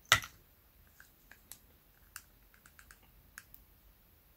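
Small, scattered clicks and taps of a precision screwdriver and hands working a screw on a plastic spinning reel's body, with one sharper, louder click just after the start.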